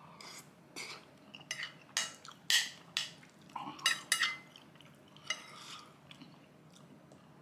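Metal spoon clinking and scraping against a ceramic bowl while scooping up curry and rice: a series of sharp clinks, one ringing briefly about four seconds in, then only faint sounds.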